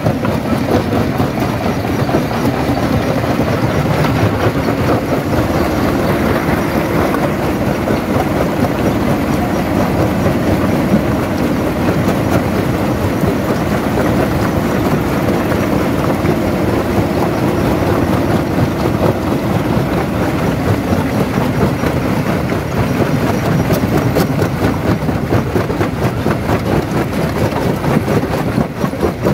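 Stone jaw crusher running under load, rock rattling and grinding between the jaws in a steady, dense clatter over a low rumble.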